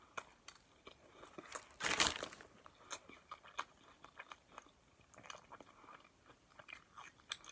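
Close-up eating sounds of a Subway sub sandwich with cheese-topped bread: a bite with a loud crunch about two seconds in, then soft, irregular chewing clicks and crackles.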